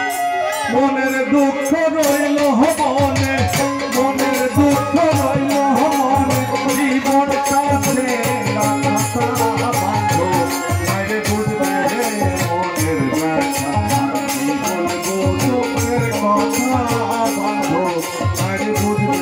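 Live Bengali folk music: a melody carried over a steady beat of hand percussion and a shaken rattle.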